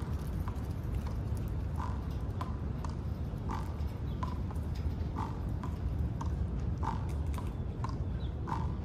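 A squirrel gnawing a nut, with short crunching clicks about one to two a second, over a steady low rumble.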